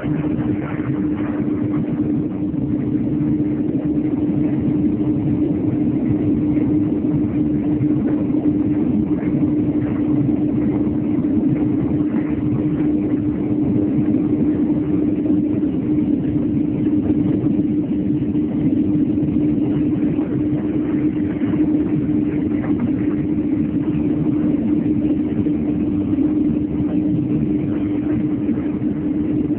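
Two ZSP-900 tyre shredders running: a loud, steady machine drone with one constant humming tone and no change in speed.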